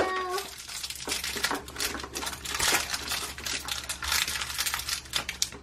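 Crinkly plastic blind-bag wrapper rustling and tearing as it is pulled open, with many small clicks of hard plastic toy pieces being handled.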